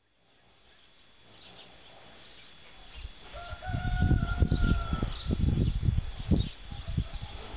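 A rooster crows once, a single long held call about three seconds in, over small birds chirping high up. The sound fades in from silence. Loud low rumbling surges run through the middle.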